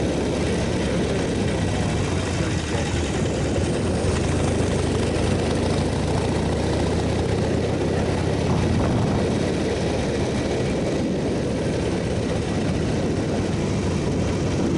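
Motorcycle engine running steadily while riding at an even speed, mixed with wind and road noise.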